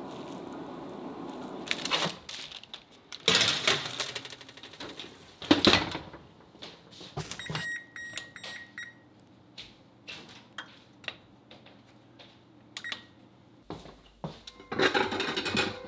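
Kitchen clatter of metal pans and the oven, with a few short electronic beeps from the range's control panel about seven seconds in and light clicks and taps after that. A steady rushing noise stops about two seconds in.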